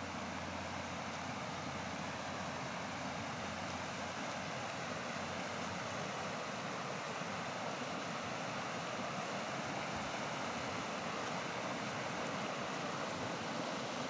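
River water rushing over rocks at a small waterfall and rapids: a steady, even rush that grows slightly louder.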